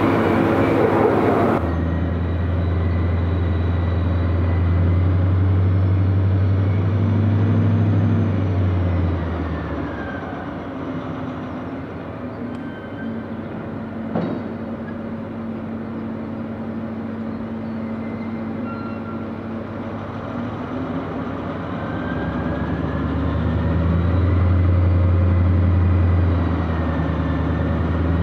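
A diesel locomotive's engine running with a deep, steady hum that dies down about ten seconds in and builds up again near the end, a faint high whine rising and falling over it. The first second and a half is a louder rushing noise that cuts off abruptly.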